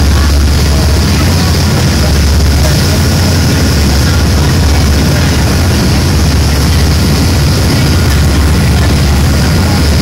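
Boat's engine running steadily under way, a loud low hum, with the rush of the churning wake water over it.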